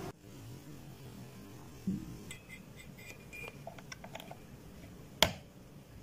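Light handling clicks and taps of a small plastic mini air cooler and its cable, ending in one sharp click about five seconds in as the DC barrel plug is pushed into the cooler's power jack.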